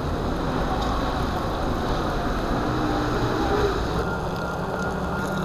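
Steady rushing noise of riding an electric unicycle on wet pavement: wind buffeting the microphone and the tyre hissing on the wet road, with a steady low hum joining about four seconds in.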